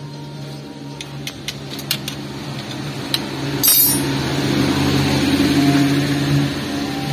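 Metal clinks and knocks of hand tools on the rear drum-brake backing plate and handbrake fittings of a Mitsubishi L300, sharp and irregular, with a louder rushing noise rising a little past halfway and lasting about three seconds.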